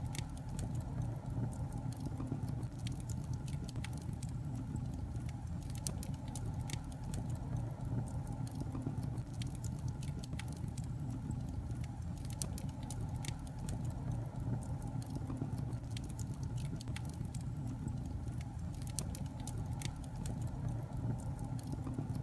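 Wood fire burning in a fireplace, crackling with frequent, irregular small pops over a steady low rumble.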